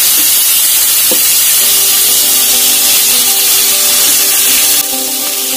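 Chicken pieces sizzling loudly in hot mustard oil in a karahi, a steady hiss that eases off a little near the end. Background music comes in about one and a half seconds in.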